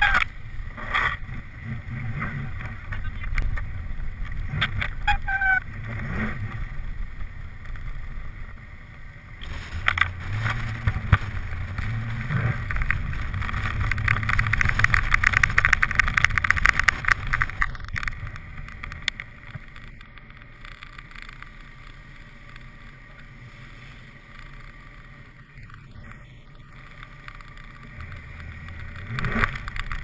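Car driving along snow-packed streets, picked up by a camera mounted outside on the hood: a continuous rumble of engine, tyres and wind that swells and fades, with a few sharp knocks in the first few seconds.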